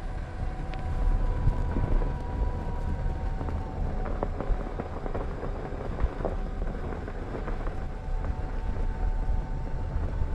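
Car driving on a snow-covered, icy mountain road: a steady low engine and road rumble with a faint, slightly wavering whine and scattered small clicks.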